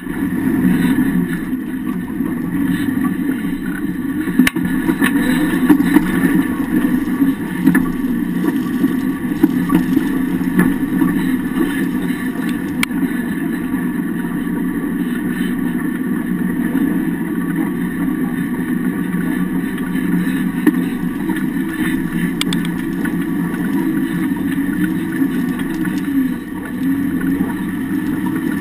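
Off-road vehicle driving over rough ground, heard from under the rear axle: a steady drone of engine and drivetrain with a few sharp knocks and rattles from the chassis and suspension.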